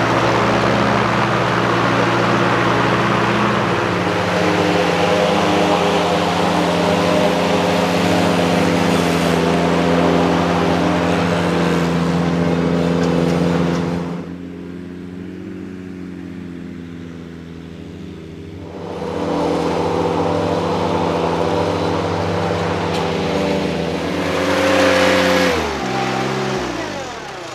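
Gas engine of a Ventrac 4500Z articulating tractor-mower running steadily. It grows fainter for a few seconds about halfway through, then is shut off near the end, its pitch falling as it winds down.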